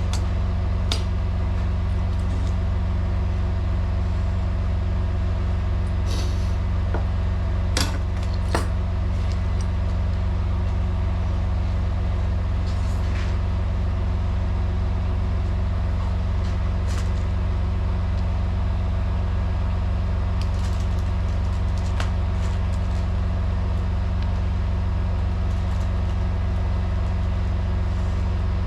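Semi truck's diesel engine idling steadily, with scattered clicks and clanks of metal parts being handled, the sharpest pair about eight seconds in.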